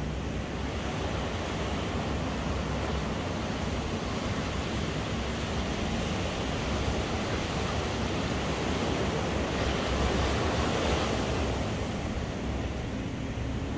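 Ocean surf breaking and washing up the beach in a steady wash, swelling louder about ten seconds in and then easing off. Wind rumbles on the microphone underneath.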